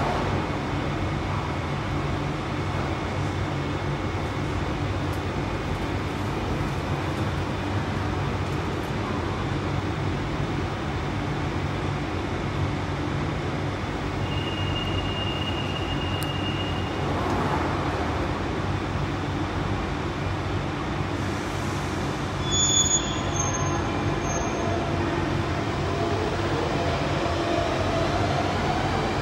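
London Underground Central Line 1992 Stock train standing at a platform with its doors open, its equipment giving a steady low hum. A brief high tone sounds about halfway through. Near the end a rising whine builds, which fits a train on the other platform accelerating away.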